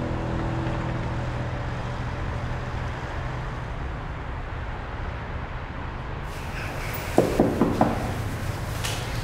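A steady low rumble, then four quick gasping breaths about seven seconds in.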